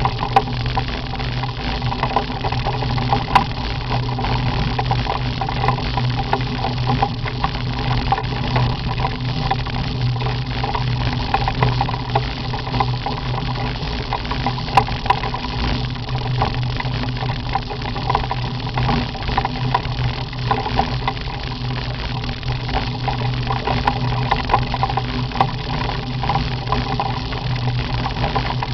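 Motorcycle-and-sidecar engine running steadily at an even cruising speed, its note holding constant throughout.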